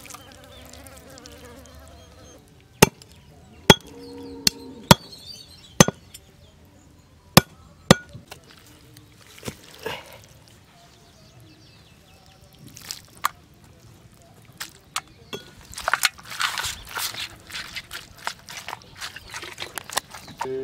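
Heavy knife chopping raw rabbit meat and bone on a wooden tree-stump block: about seven sharp, irregularly spaced chops in the first half, then a few lighter knocks. Near the end comes a busy stretch of scraping and handling as the chopped meat is gathered.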